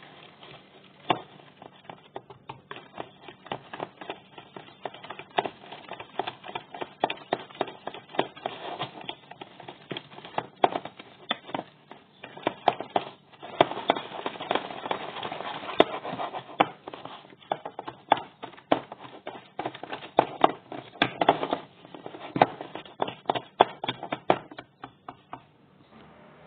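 Metal balloon whisk beating eggs into a crumbly mixture in a bowl: quick, uneven clicking and tapping of the wires against the bowl, several strokes a second. It stops about a second before the end.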